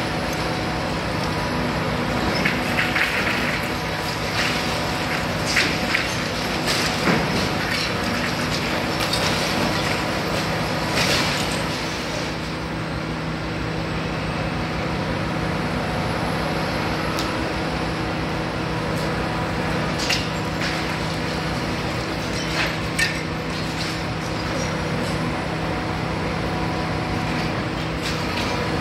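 Hitachi Zaxis 350 high-reach demolition excavator running with a steady diesel engine drone, broken by scattered sharp cracks and clatters as its crusher jaw breaks concrete at the top of the building.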